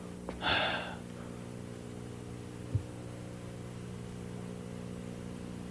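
A man's short breathy sigh near the start, then a single soft knock about three seconds in, over a faint steady low hum.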